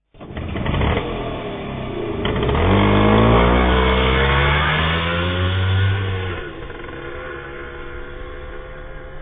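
Auto rickshaw's small engine running and revving up as it pulls away, its note climbing for a few seconds. About six seconds in it drops back to a quieter, steadier run.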